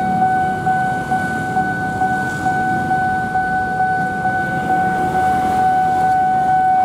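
Railway level-crossing warning alarm sounding one steady, unbroken high tone as the barrier is down, over the low rumble of motorbike engines waiting and passing at the crossing.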